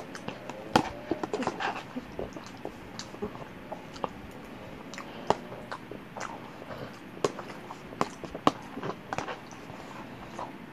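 A person eating lasagna: chewing and mouth smacks, with irregular sharp clicks and taps throughout.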